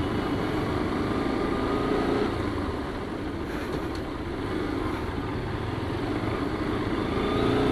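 Motorcycle engine running steadily while riding slowly in city traffic, with the hum of surrounding road traffic.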